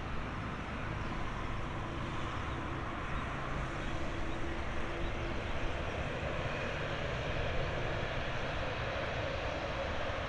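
Boeing 787-9's GEnx turbofan engines running at low taxi power as the airliner taxis and turns, a steady jet engine hum and rush that grows slightly in the upper range in the second half.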